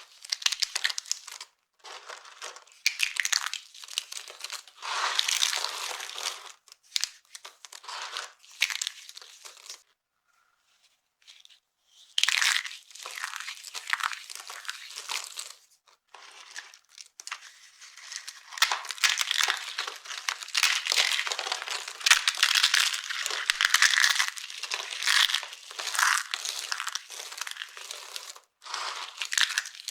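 Dry soap crackling and crunching as it is crushed and crumbled, in irregular bursts. There is a pause of about two seconds around the middle, and the crunching gets denser and more continuous in the second half.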